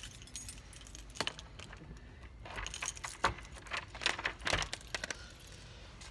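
A bunch of keys jangling and clicking in a series of light metallic clinks as the front door's lock is worked.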